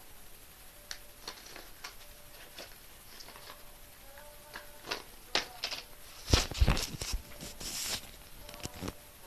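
Handling noise of a handheld camera being picked up and moved: scattered clicks, then a cluster of loud knocks and rustling a little past the middle. Faint thin tones run underneath.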